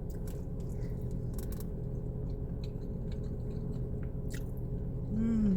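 A person chewing food close to the microphone, with scattered small wet mouth clicks. Near the end comes a short hummed "mm" that falls in pitch.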